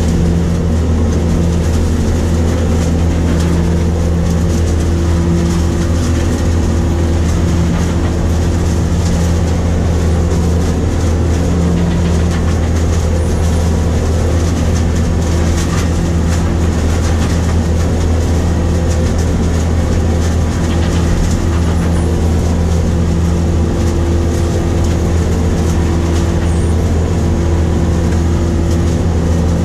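New Holland grape harvester running steadily while picking, heard from inside its cab: a constant deep engine and machinery hum with no change in speed.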